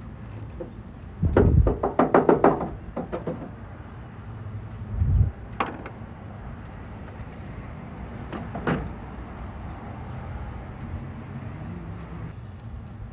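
Metal clanks and knocks of hand work in a truck's engine bay: a quick run of rattling knocks about a second in, a heavy thump around five seconds, then a couple of sharp single clicks, over a steady low hum.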